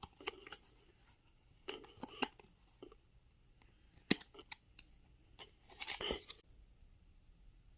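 Cardboard and paper packaging being handled while lomocards are unboxed: short crinkling rustles and sharp clicks in scattered clusters. The last cluster is about a second long, and then the sound stops.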